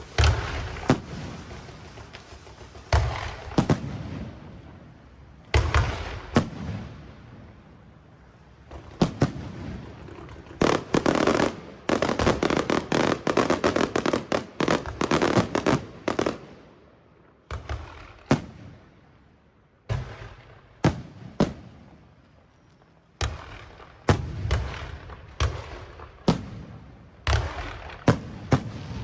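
Fireworks going off: a run of separate sharp booms and cracks, each with an echoing tail, thickening into a dense rapid barrage for several seconds in the middle before thinning out to scattered bursts again.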